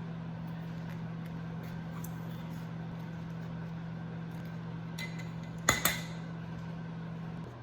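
A steady low hum, with two sharp clinks close together about six seconds in.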